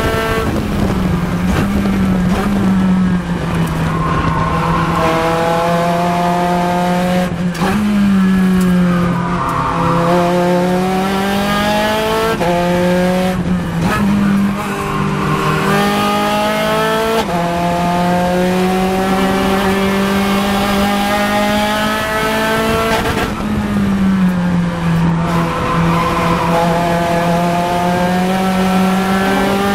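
Spec Racer Ford Gen3's four-cylinder engine at high revs, heard from the cockpit, its note climbing and falling as it is driven hard through the gears. The pitch drops sharply about seven seconds in and again near twenty-three seconds, where the car brakes and downshifts for corners, then rises again as it accelerates out.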